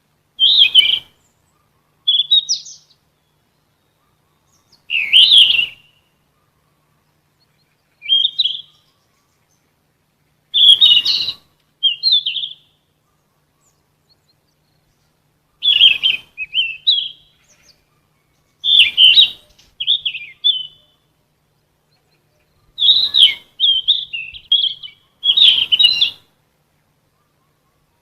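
Sikatan emas, a Ficedula flycatcher, singing short, high, twittering phrases one after another, separated by pauses of a second or more; some phrases run two or three quick notes together.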